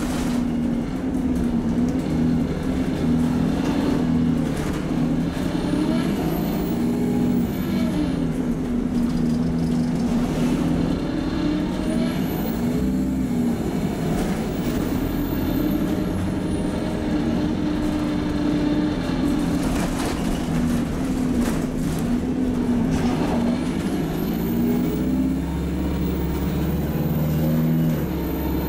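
Interior of an Alexander Dennis Enviro200 MMC single-deck bus on the move, its diesel engine and Allison automatic gearbox running with the engine pitch stepping through gear changes. About twenty seconds in, the gearbox kicks down and the engine pulls harder.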